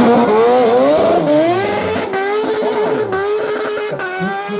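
Drag-racing superbike launching off the start line and accelerating hard down the strip. The engine note climbs and drops back with each of several quick upshifts, and grows fainter as the bike pulls away.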